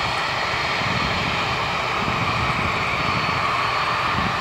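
Turbofan engines of a Lockheed C-5M Super Galaxy running: a loud, steady jet rush with a faint high whine over it.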